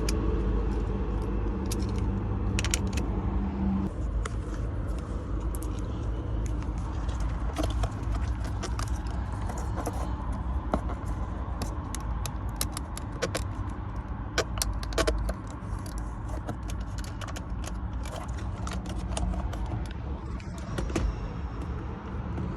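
Many light metallic clicks and jingles scattered over a steady low rumble.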